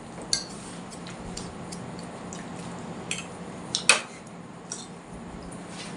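Spoons or forks clicking against plates now and then while noodles are eaten, the loudest a quick pair of clinks about four seconds in, over a low steady hum.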